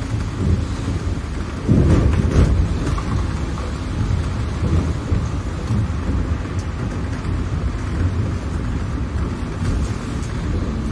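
London bus's engine and road noise heard from inside the cabin: a steady low rumble, briefly louder about two seconds in.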